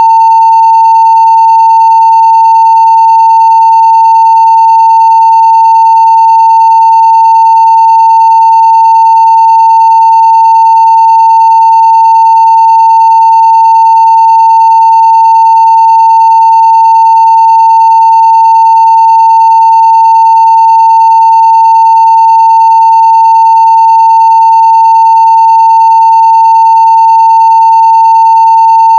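A 900 Hz sine-wave test tone at full scale (0 dB): one loud, unbroken, steady pitch.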